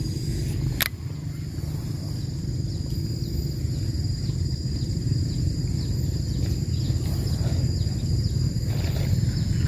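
Outdoor ambience: a steady low rumble with a steady high-pitched insect drone over it. There is one sharp click about a second in, and from about three seconds on a string of short, quick, falling chirps.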